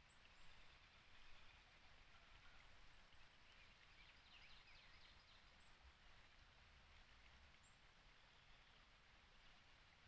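Near silence with faint wild songbird calls: a few short high chirps, and a quick trill of downward notes about four seconds in.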